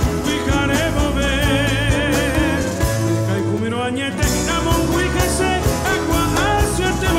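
A live band playing a contemporary Paraguayan song: a man singing to acoustic guitars, electric bass, keyboard and drum kit. The bass and drums drop out for about a second, around halfway through, then come back in.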